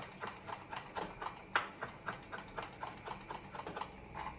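Kitchen knife chopping on a wooden cutting board in quick, even strokes, about four a second.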